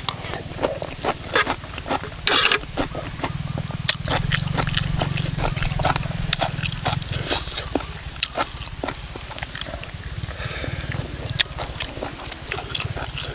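Close-miked chewing of crunchy pounded cucumber salad, with a dense run of wet clicks, crunches and mouth smacks. Under it runs a steady low rumble of wind on the microphone.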